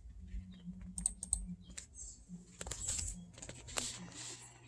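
Faint, irregular key clicks on a computer keyboard, coming in small clusters of quick taps with pauses between, over a faint low hum.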